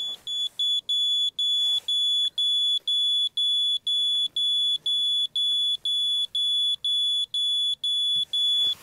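A laser level beeping: a high single tone repeated quickly and evenly, about three beeps a second, while the laser self-levels and locks onto its receiver.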